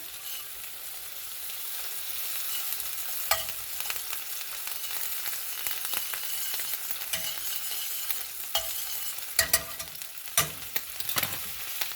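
Oil and butter sizzling in a hot frying pan, with a steady hiss and several sharp clinks of a utensil against the pan, most of them a little past the middle.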